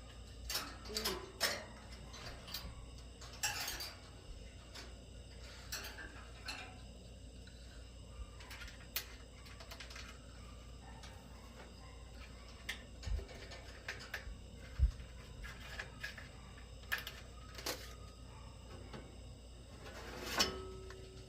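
Scattered light clicks and knocks of hand work on an air-conditioner condenser's fan motor and its wiring, over a steady high chirring of crickets.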